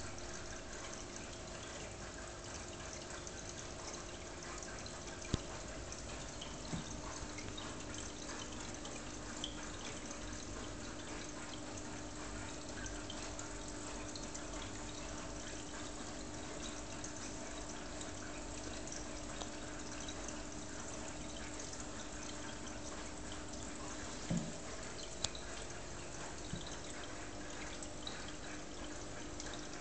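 Aquarium filter running: a steady trickle and splash of circulating water under a faint, steady hum. A few small sharp clicks come about five seconds in and again near the end.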